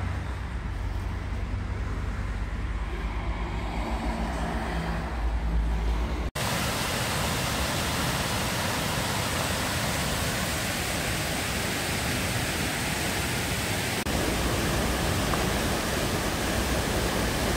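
A low rumble for about six seconds, then, after a sudden cut, the steady rushing of a fast mountain stream over rocks.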